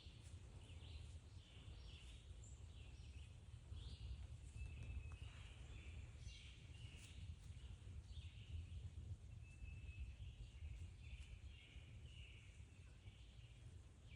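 Faint birdsong: several birds chirping and whistling in short, overlapping calls, over a steady low rumble.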